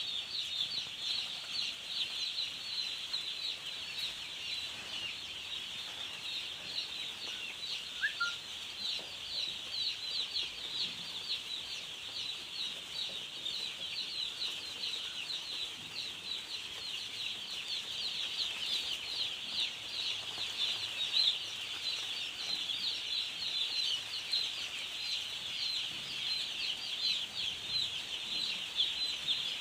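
A large flock of chickens in a poultry house calling all at once: a dense, unbroken chorus of high-pitched peeps.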